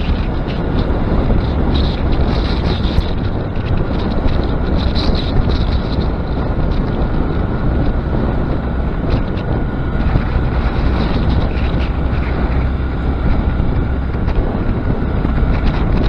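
Steady wind roar buffeting an action camera's microphone while riding a 2021 Honda Grom, with the bike's single-cylinder engine running as a drone underneath.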